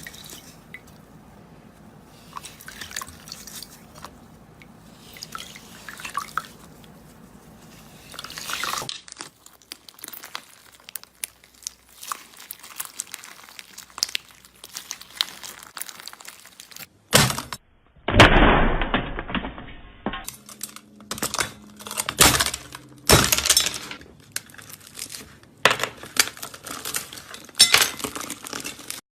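Slime being squeezed, stretched and poked by hand: sticky clicks, crackles and wet pops. It comes as a run of short clips with changing sound, the loudest squelches in the second half.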